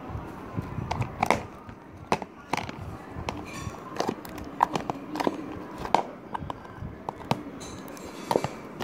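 Slime being squeezed, poked and stretched by hand against a plastic tub, giving irregular wet clicks and pops, a few a second.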